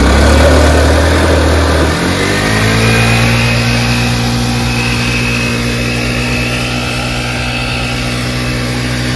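Scooter engine held at high revs during a burnout, its rear tyre spinning in water and mud and throwing up spray. The engine note shifts about two seconds in, then holds steady.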